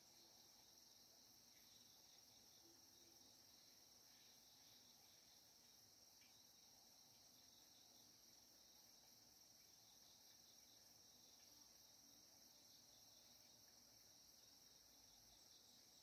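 Faint, steady high-pitched insect chorus, a continuous trill without breaks.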